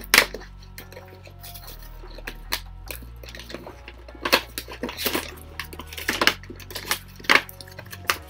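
Cardboard and plastic packaging of a boxed action figure being worked open by hand: scattered crinkles and sharp clicks, the loudest a single click just after the start.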